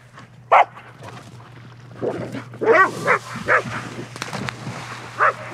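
A dog barking and yipping in short bursts, about half a dozen times spread over a few seconds, excited during a game of fetch.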